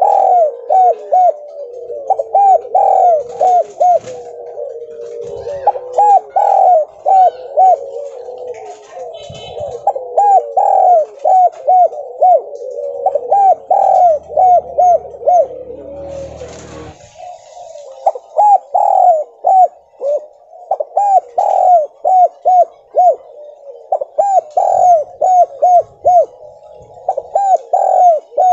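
Spotted dove (tekukur) cooing over and over in quick runs of three to five notes, each note rising and falling. The broken, repeated phrasing is the 'gagap' (stuttering) coo that keepers prize in this bird.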